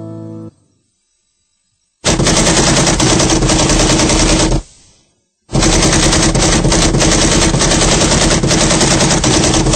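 Rapid automatic gunfire used as a sound effect: a burst of about two and a half seconds, a short break, then a longer run of about six seconds. A music bed fades out just before it.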